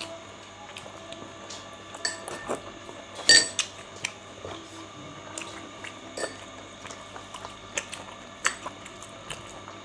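Cutlery clinking against dishes, among scattered small clicks. There is one sharp ringing clink about three seconds in and another toward the end.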